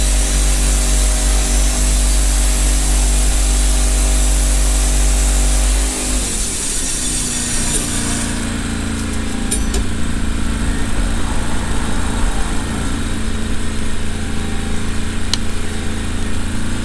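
Wood-Mizer LT15 band sawmill running, its band blade sawing lengthwise through a log. The machine's steady note changes abruptly about six seconds in, and the mill keeps running loud after that.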